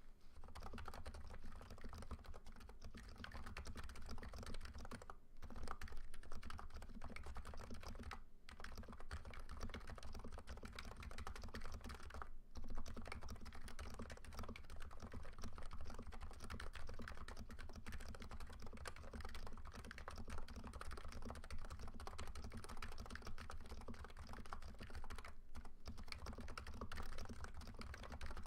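Fast continuous typing on a NiZ Nano 75 electro-capacitive keyboard with 45 g switches, their housings and sliders lubed. A dense stream of keystrokes, broken by short pauses about five, eight, twelve and twenty-six seconds in.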